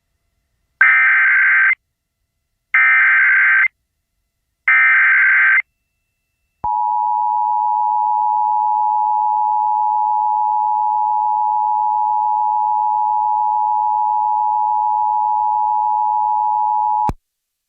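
Emergency Alert System activation: three one-second bursts of digital SAME header data tones, a second apart, then the EAS attention signal, a steady two-tone alarm held for about ten seconds that cuts off abruptly.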